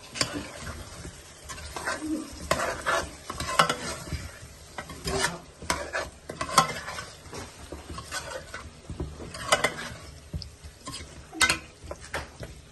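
A spoon or spatula stirring food in a hot pan, with irregular scrapes and knocks against the pan over a steady sizzle of frying.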